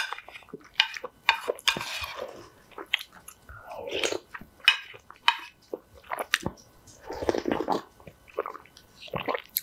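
Close-up eating sounds: spicy ramyeon broth slurped from a spoon, with chewing and mouth noises coming in short, irregular bursts.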